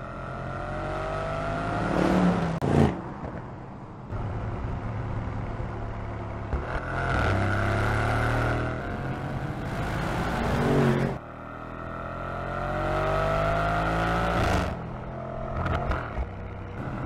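Mercedes-AMG GLC 63 S's 4.0-litre twin-turbo V8 accelerating hard, its pitch climbing as it revs up. It comes in several short passes broken by sudden cuts.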